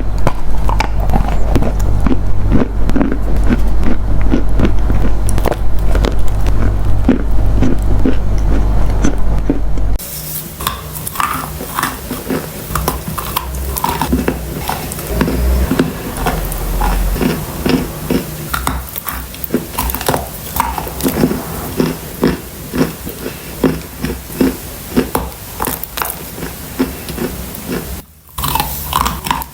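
Dry edible clay being bitten and chewed close to the microphone: repeated crunches and crumbly clicks. For the first ten seconds a steady low hum lies under them. Then the sound changes abruptly to quieter, crisper, separate crunches.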